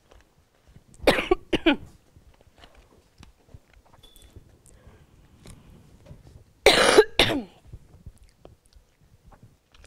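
A woman coughing in two bouts: a pair of coughs about a second in, then a louder double cough about two-thirds of the way through. It is a dry cough from a cold and a dry spot in her throat.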